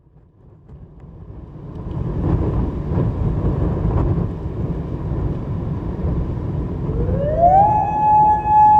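Wind buffeting the microphone, then about seven seconds in an outdoor tornado warning siren winds up. Its pitch rises steadily for under a second, then levels off into a loud steady tone.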